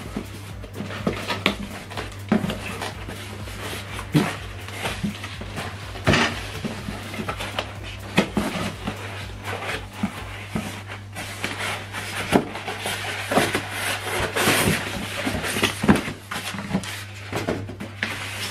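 Polystyrene foam packing and a cardboard box being handled: irregular scrapes, rubs and light knocks as the foam is worked loose and pulled out of the box, over a steady low hum.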